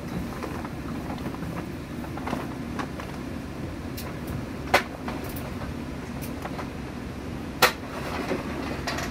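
Diesel railcar running, heard from inside the cabin: a steady low rumble of engine and wheels with scattered light clicks. Two sharp knocks, the loudest sounds, come about five seconds in and just before eight seconds in.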